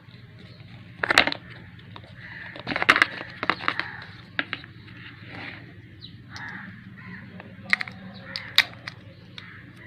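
Packaging being handled: short crinkling rustles and sharp clicks and taps at irregular moments, the biggest about one second in and around three seconds in, with a run of clicks near the end, over a steady low hum.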